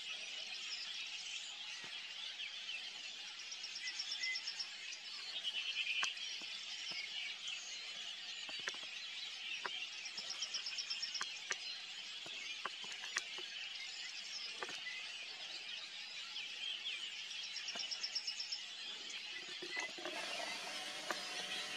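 Outdoor evening birdsong: many birds chirping together, with a rapid high trill repeating every few seconds and a few scattered clicks. A faint steady hum with several tones joins near the end.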